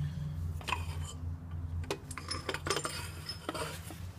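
A few scattered light metallic clinks and ticks over a steady low hum.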